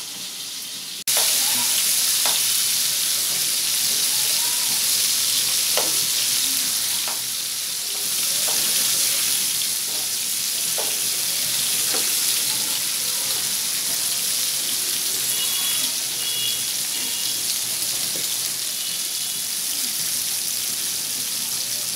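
Pieces of rui fish frying in hot oil in a pan: a loud, steady sizzle with scattered pops and crackles, starting abruptly about a second in.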